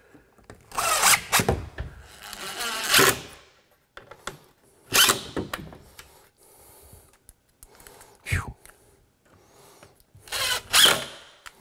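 Cordless DeWALT driver running coarse-thread drywall screws through metal door-hanging clips into a door jamb, in several short bursts with pauses between.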